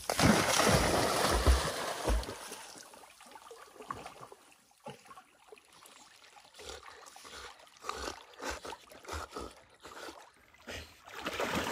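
Two dogs swimming and paddling through lake water, with small irregular splashes and lapping. A louder rush of noise with low thumps fills the first two seconds.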